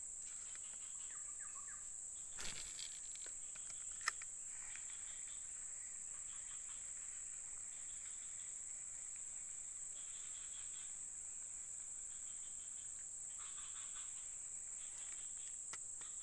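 Forest insects keep up a steady high-pitched buzz, with patches of softer trilling chirps coming and going and a single sharp click about four seconds in.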